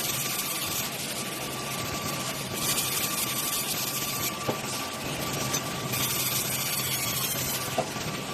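Log sawmill machine running: a steady mechanical hum with a thin high whine, and stretches of hiss that come and go. Two short sharp clicks, one about halfway through and one near the end.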